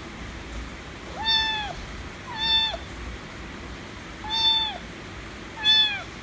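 Kitten meowing loudly four times, each meow about half a second long with a pitch that holds and then drops at the end: demanding attention and affection.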